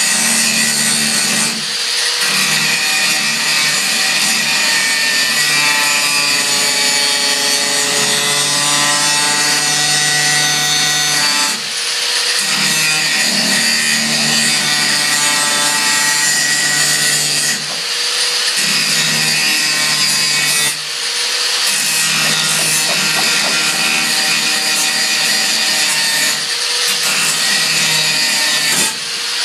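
Corded electric angle grinder grinding a 1/4-inch steel bolt down flush with a galvanized metal wall: a steady motor whine over the harsh grind of the disc on metal. The sound dips briefly several times as the disc eases off the bolt and bites again.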